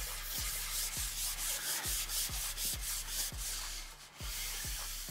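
Background music with a steady beat: a kick drum about twice a second over a held bass note, with a rhythmic high hiss like a shaker that drops out briefly about four seconds in.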